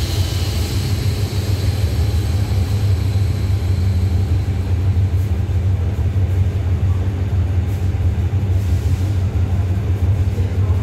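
Diesel engine of a train standing at the platform, idling with a steady low drone. The last of an air-brake hiss fades out in the first second.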